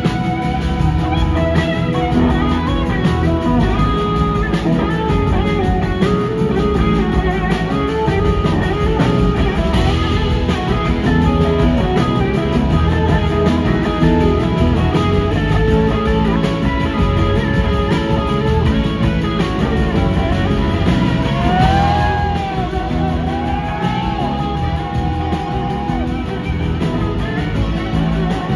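Live rock band playing an instrumental guitar passage over drums, bass and keyboards, with an electric guitar's notes sliding up and down in pitch near the end.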